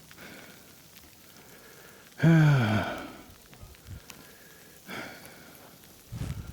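A man lets out one loud groan about two seconds in, his voice falling in pitch. Around it is a faint steady hiss, and a low rumbling noise comes up near the end.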